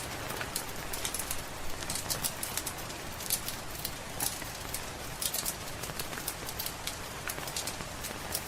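Steady rain hiss with a wood fire crackling over it: frequent, irregular sharp pops and snaps.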